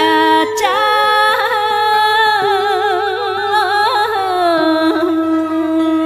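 A woman chanting Vietnamese poetry in the ngâm thơ style, drawing one syllable out into a long, slow line with wide vibrato over instrumental accompaniment. The melody sinks lower about four seconds in.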